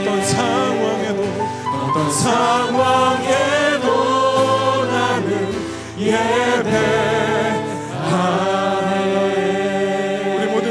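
Worship music: voices singing a praise song with vibrato over sustained instrumental accompaniment.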